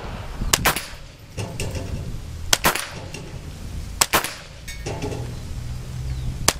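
Four shots from a CBC 7022 .22LR semi-automatic rifle, about two seconds apart. Each is followed a split second later by the clang of a steel plate target being hit and knocked down.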